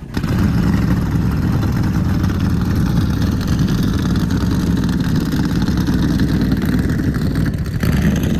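Car engine running loudly and steadily, dipping briefly near the end.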